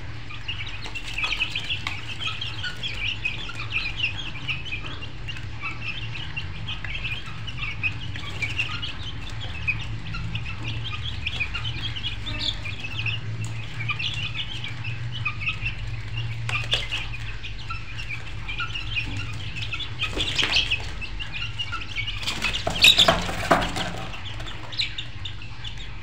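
Many birds chirping densely and continuously over a low steady hum, with a few louder noisy bursts about 20 and 23 seconds in.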